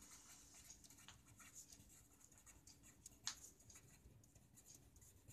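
Faint scratching of a felt-tip marker writing on paper in short strokes, with one sharper tick a little after three seconds in.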